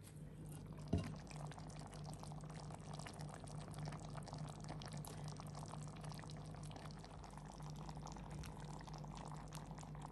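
Faint bubbling and crackling of hot lamb stew in a clay pot, a steady soft simmer full of tiny pops, over a low steady hum. A single knock about a second in.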